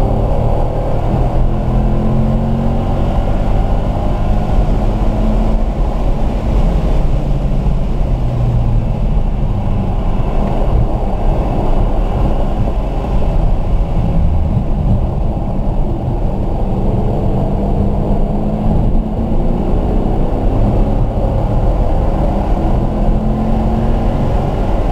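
Car engine pulling hard at track speed, heard from inside the car over heavy road and wind noise, its pitch rising and falling through the lap and climbing near the end as the car accelerates.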